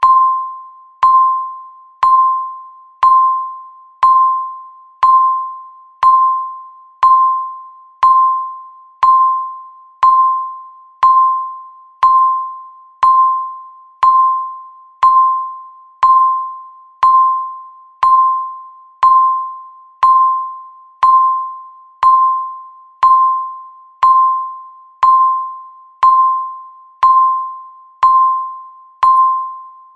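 Countdown timer beeping once every second: a single clear electronic tone that starts sharply and fades away before the next one.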